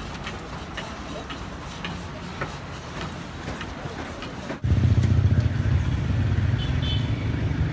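Street ambience of traffic and distant voices. About halfway through it cuts abruptly to a louder, steady low rumble.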